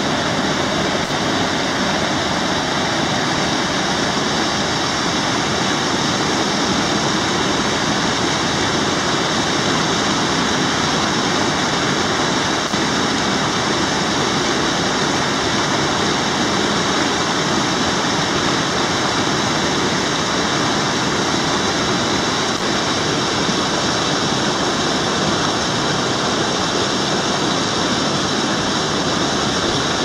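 Small waterfall cascading over rocks into a pool: a loud, steady rush of falling water.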